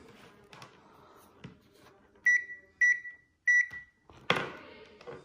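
ANENG AN8009 digital multimeter's continuity beeper sounding three short beeps at one steady pitch as the probe tips make contact, each beep signalling a closed circuit. A brief rustle of handling follows near the end.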